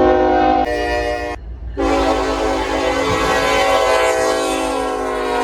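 Train air horn sounding a chord of several tones: a blast of about a second and a half whose chord shifts partway through, a brief break, then a long held blast, over a low rumble.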